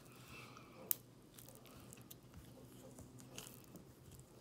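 Pimple putty being squeezed and kneaded by hand, faint and squishy, with the beads inside popping in small sharp clicks, the loudest about a second in.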